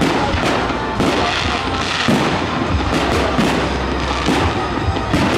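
Fireworks display: aerial shells bursting one after another, about a dozen sharp bangs in quick succession.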